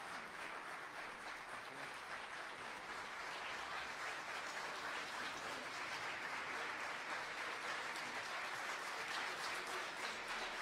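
Audience applauding in a theatre hall, a steady clapping that swells a little louder about halfway through.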